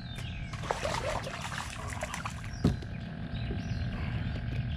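Water splashing for about two seconds as a hooked bluegill thrashes at the surface, then a single sharp thump just under three seconds in. A steady low rumble runs underneath.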